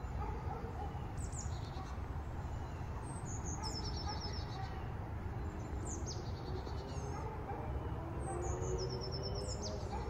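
A songbird singing, repeating a short high phrase about every two to three seconds: a sharp downslurred note followed by a quick run of notes. There is a steady low rumble of outdoor background noise underneath.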